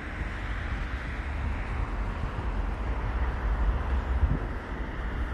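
Steady road-traffic noise with wind buffeting the microphone: a low rumble under an even hiss.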